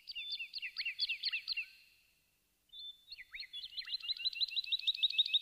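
Bird chirping as the opening effect of a film song: a quick flurry of high chirps that fades out, a short pause, then a fast, even run of repeated chirps, about five a second.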